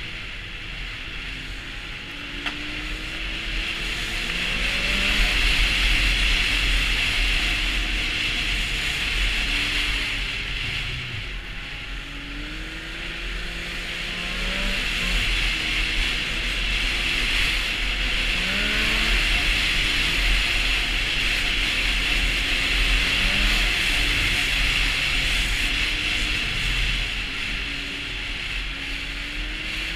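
Snowmobile engine under way on the trail, its pitch rising and falling as the throttle is opened and eased off, over a steady rushing noise.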